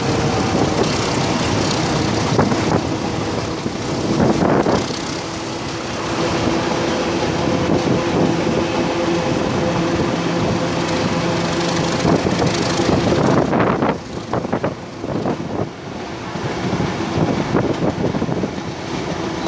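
A passenger train hauled by an Alco RSD-39 diesel locomotive, heard on board while it runs: wheels on the rails and running noise, with a steady hum through the middle. It turns quieter about fourteen seconds in, with a few sharp knocks.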